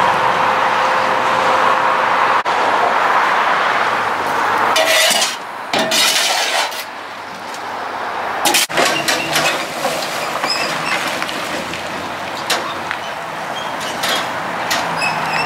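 Soil and gravel being shovelled and scraped out of a tipped steel dump-trailer bed: scattered scrapes and clinks of the shovel. A steady hum runs under the first couple of seconds.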